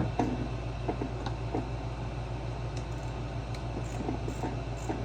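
Steady hum of a room air conditioner, with scattered light clicks and taps from handling tools and parts.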